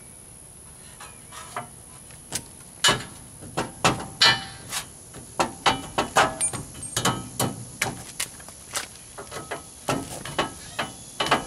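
Irregular metal knocks and clanks, a few a second, from a steel bumper being slid and worked onto a Jeep Wrangler JK's frame mounts.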